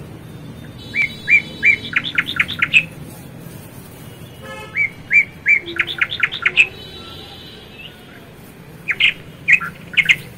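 A bird singing a repeated phrase: three evenly spaced notes, then a quick run of sharper notes. The phrase comes twice in full and once more, shorter, near the end.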